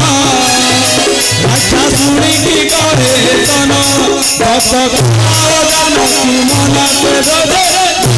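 Stage accompaniment music: a wavering melody over low drum strokes, with sharp percussion hits about three times a second.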